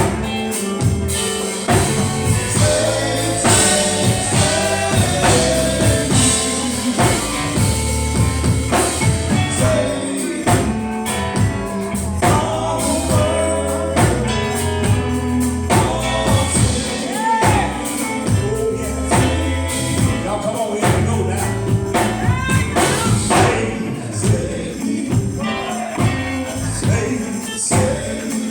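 Gospel music: voices singing over a band with bass, drums and a tambourine keeping a steady beat.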